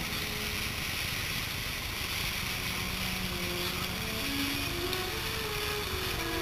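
Boiling mud pot giving off a steady rumbling hiss as it churns and steams.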